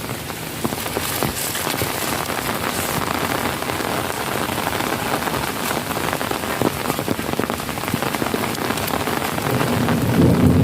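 Heavy rain pouring onto the ground and puddles: a steady, dense patter of drops. A low rumble swells in near the end.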